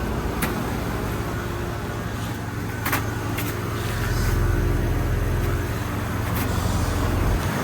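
A Daikin heat pump's outdoor unit running, a steady low compressor hum with fan noise over it, and a few faint clicks. The hum cuts off abruptly just before the end.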